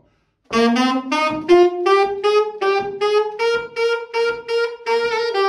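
Alto saxophone playing a phrase of about fifteen short, separately tongued notes. They climb step by step, repeat one pitch several times, and drop on the last note.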